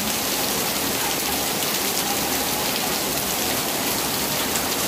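Heavy rain pouring down, a steady, dense hiss of rainfall.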